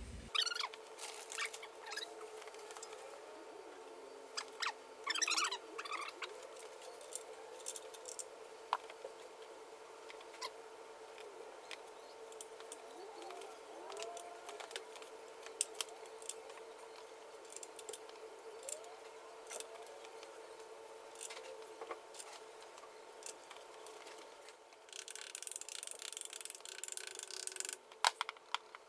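Scattered light metallic clicks and knocks as a crankshaft and its main bearing caps are set into a Jaguar E-Type engine block, over a steady hum. Near the end comes a short spell of denser, brighter clattering.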